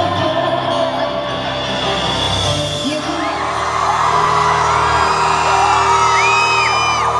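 Live pop concert music over an arena sound system, with the crowd whooping and screaming over it.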